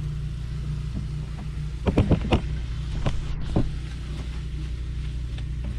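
Utensil clattering against a cooking pan as peppers and onions are tipped in and mixed with the meat: a quick cluster of sharp knocks about two seconds in, then single knocks a second and a second and a half later, over a steady low hum.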